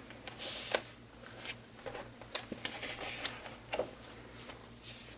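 Paper and cardstock album inserts being handled: rustling and a brief sliding hiss, with a few light taps of cards.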